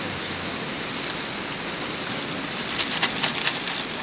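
Steady rain falling around a camp tarp. About three seconds in comes a quick run of sharp plastic crinkles as a food packet is handled and opened.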